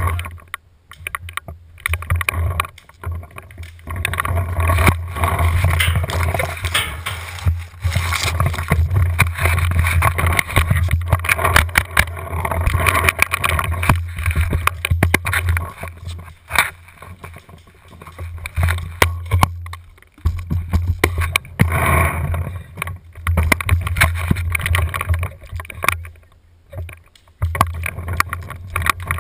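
Wind and handling noise on a marker-mounted action camera: a steady low rumble with rustling, broken by short pauses and scattered sharp clicks.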